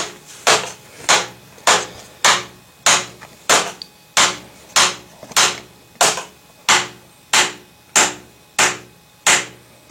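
Hammer blows driving PVC pipe sections down into their fittings to seat them: a steady series of strikes, about three every two seconds, each with a short ring.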